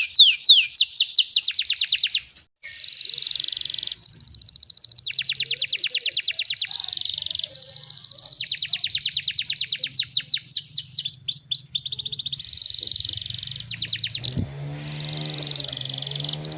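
Domestic canary singing fast, tightly packed trills of rapidly repeated high notes, the 'tembakan rapat' style of canary song. The runs last one to three seconds each and some notes glide downward. A click comes about 14.5 s in, and a lower pitched sound with sliding tones sounds under the song near the end.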